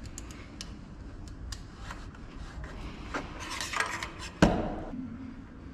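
Small metallic clinks and scrapes of a hand tool working the mounting bolts of a motorcycle exhaust as it is tightened in place, with one louder metal clank about four and a half seconds in.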